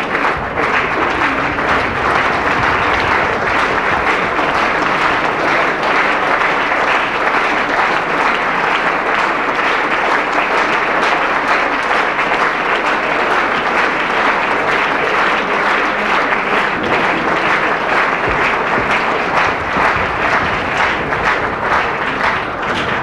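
Theatre audience applauding steadily, many hands clapping at once: curtain-call applause at the end of a stage play.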